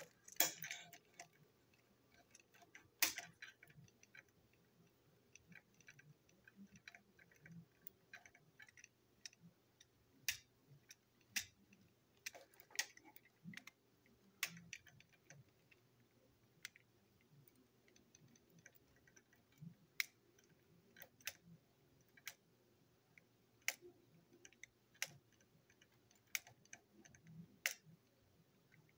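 Small screwdriver turning a screw in a plastic Plarail toy-train chassis: faint, irregular clicks and ticks, about one every second or two, from the driver slipping and catching in the screw head and the plastic being handled.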